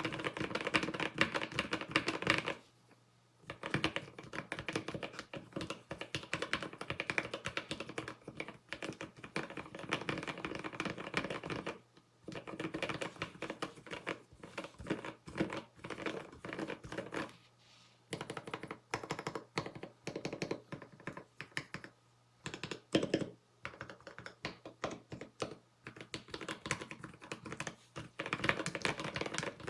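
Typing sound test on an Idobao ID67 V2 aluminium custom keyboard fitted with lubed Gateron Pro Yellow linear switches, lubed Cherry screw-in stabilisers and PBT keycaps, with foam and a tape mod inside. Fast, continuous key presses, with a few short pauses: about three seconds in, and again around 12, 17 and 22 seconds.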